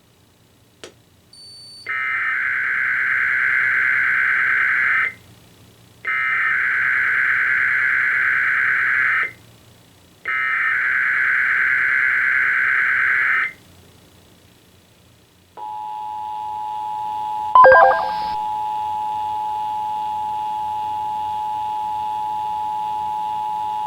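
Emergency Alert System Required Weekly Test coming in on EAS receiving equipment: three warbling digital SAME header bursts of about three seconds each, then the steady two-tone attention signal (853 and 960 Hz) that runs on past the end. A click and a short high beep come just before the first burst, and a brief loud crackle breaks in about two seconds into the attention tone.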